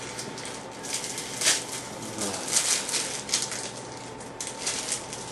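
Trading cards being handled and shuffled, a string of short, high rustling and sliding swishes of card stock and packaging.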